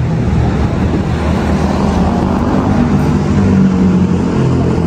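Engine of a road vehicle running steadily with traffic and road noise, a low drone that swells slightly past the middle.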